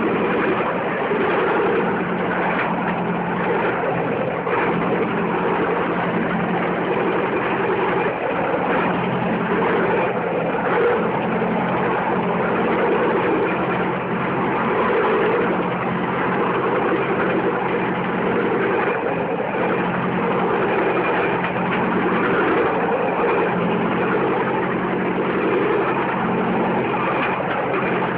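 A bamboo train (norry) running along the rails. Its small engine drones steadily under the rattle and rumble of the wheels on the track.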